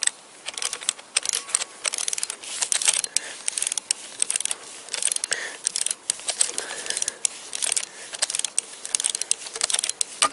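Ratchet wrench with a 14 mm socket clicking in quick bursts as it is swung back and forth, running the flywheel bolts down.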